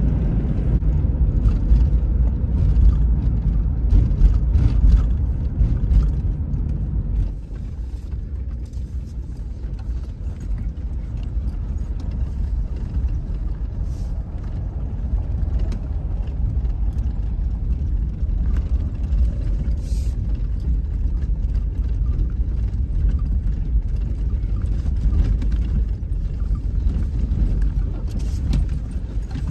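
A 1999 Chevy Astro van driving, heard from inside the cab: a steady low rumble of engine and road noise, louder for the first seven seconds or so and then lower, with occasional light clicks and rattles.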